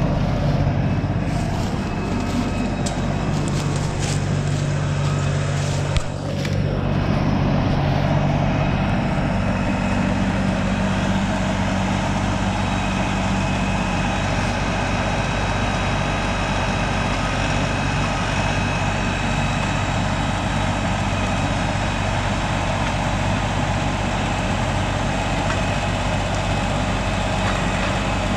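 Diesel engine of an LS compact tractor running steadily, close by, as the tractor works its front-loader grapple on logs.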